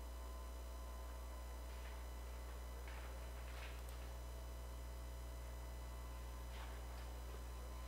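Steady electrical hum with a faint background hiss, with a few faint, brief soft sounds now and then.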